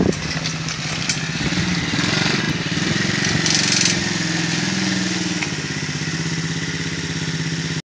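Small engine of a homemade four-wheel quad scooter running while the scooter is driven slowly, the note a little quieter and steadier in the second half. It cuts off suddenly just before the end.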